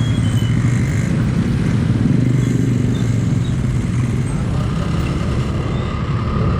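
Road traffic at a railway level crossing, mostly motorcycle engines running in a steady loud rumble.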